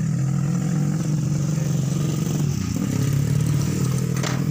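Diesel truck engine idling steadily while the injector fuel lines are worked on to find a suspected faulty nozzle, the cause of white exhaust smoke when revved. A short knock comes near the end.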